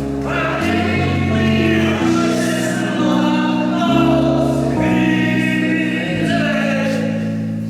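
A live indie band's song ending: singing voices over slow sustained chords, the sound dying away near the end.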